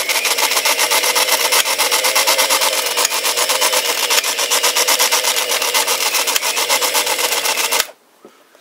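Vireneli toy sewing machine running under its small electric motor, which drives the handwheel through a friction wheel: a steady motor whirr with a rapid, even clatter of the needle mechanism. It stops suddenly about a second before the end.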